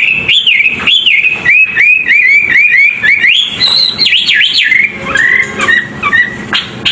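Songbird song from a masteran bird-training recording: a fast, unbroken run of clear whistled notes, about three a second, each swooping up and down. About halfway through the notes climb higher, and near the end they change to a lower phrase broken by sharp chips.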